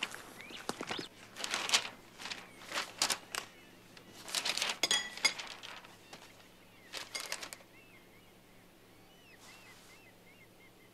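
A run of irregular rustling, crunching noises, then faint bird chirps in the background.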